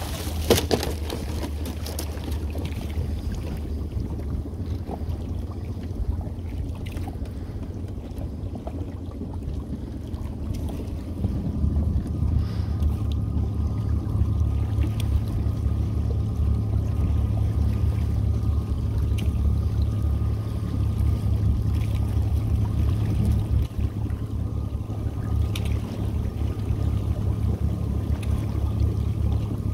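A small boat's motor runs slowly and steadily, with water sloshing alongside. About half a second in there is a splash as a crab dip net scoops at the trotline. The motor gets louder after about eleven seconds.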